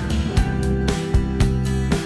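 Background music: a guitar-led tune with a steady beat.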